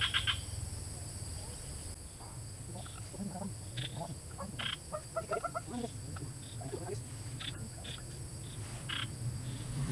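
Frogs croaking: short calls in scattered strings, busiest around the middle, over a steady low hum.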